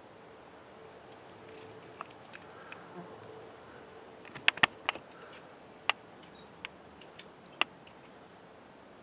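A faint, steady insect buzz that fades out about halfway through, then a handful of sharp clicks, the loudest a quick cluster of three or four about four and a half seconds in, followed by single clicks spaced a second or so apart.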